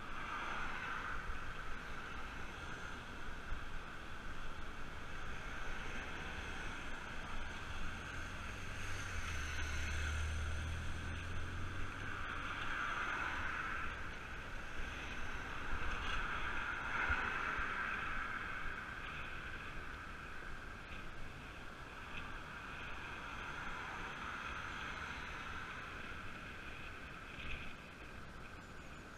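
Steady rush of wind and tyre noise picked up while riding a road bike along a road, with a low rumble and louder swells from passing traffic about ten and seventeen seconds in.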